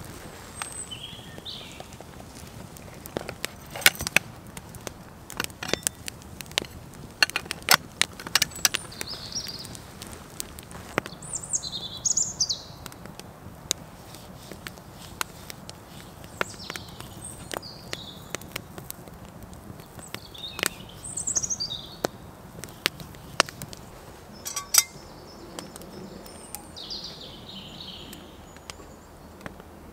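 Wood fire crackling in a Dakota fire pit, with irregular sharp pops and snaps. Birds call in short high phrases every few seconds.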